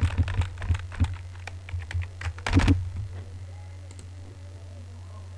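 Computer keyboard keystrokes in quick runs for the first three seconds or so, then only a few scattered taps, over a steady low hum.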